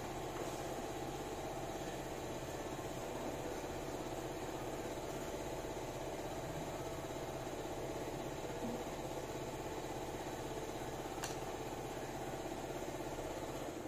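Steady mechanical hum of a running motor, unchanging in pitch and level.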